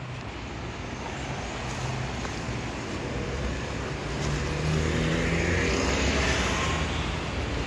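Double-decker bus's engine running as it moves through the junction, with a low drone that grows louder about halfway through, over general road traffic noise.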